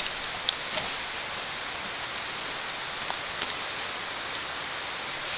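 Steady hiss of rain falling on wet dead leaves in woodland, with a few faint ticks of drops.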